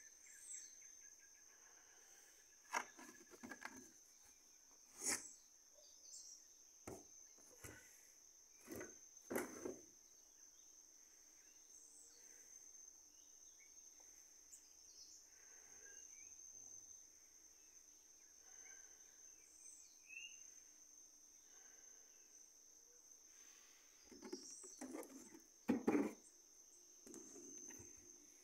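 Steady high-pitched insect drone, with a few short, sharp knocks scattered through it.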